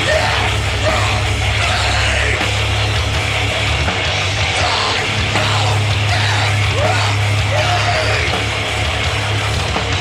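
Thrash-punk grindcore band playing live at full volume: distorted guitars, bass and drums in a dense, heavy wall of sound, with a yelled vocal over it.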